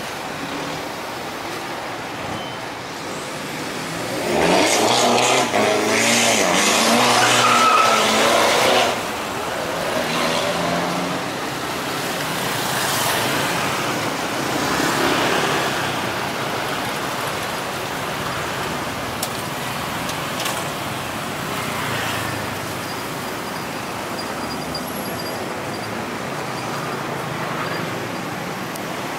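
Road traffic passing on a bridge. One motor vehicle's engine goes by close and loud for about five seconds, a few seconds in, then a steady traffic hum with smaller swells as other vehicles pass.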